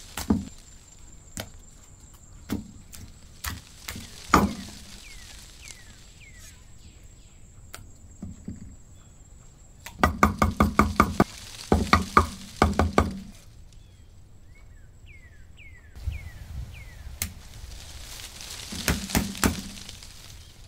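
Knocks and chopping on a thick round wooden chopping block, with a blade working raw chicken breast. A few single knocks come in the first few seconds, then fast runs of chopping at several strikes a second around the middle and again near the end.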